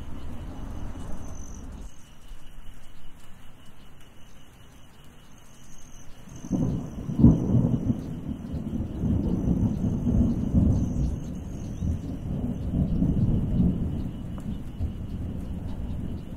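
Thunder over falling rain. A low rumble cuts off about two seconds in. Then a thunderclap breaks about six and a half seconds in, with a sharp crack a moment later, and rolls on low for several seconds.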